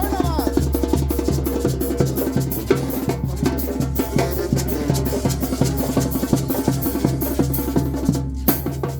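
Oaxacan brass band playing, with a steady low bass line under a regular drum and cymbal beat; the music breaks off for a moment near the end and starts again.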